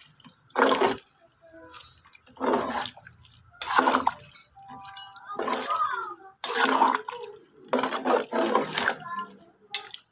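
Ladle stirring and scooping through a pot of vegetable broth, with the liquid sloshing and splashing in short bursts about a second apart.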